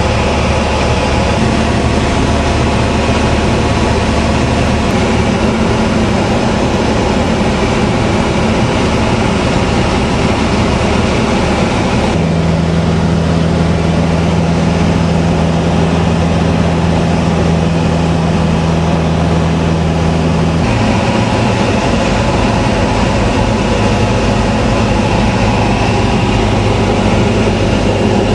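Engine and propeller of a single-engine light aircraft heard inside the cabin, a loud steady drone. The engine note changes about twelve seconds in and changes back about eight seconds later, a change in engine power.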